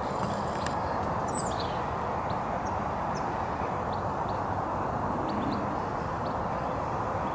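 Steady outdoor background noise with short, faint bird chirps scattered through it, including a higher call about a second and a half in.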